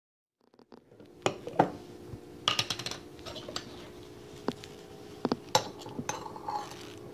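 A metal jar lid and a spoon knocking against a glass mustard jar: a series of sharp clinks and knocks at irregular intervals, over a faint steady hum.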